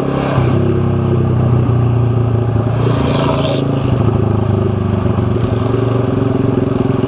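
Z200S motorcycle engine running through an open-pipe Akrapovic Evo GP exhaust while riding, with a steady, deep exhaust note. The engine pitch rises slightly about half a second in and then holds.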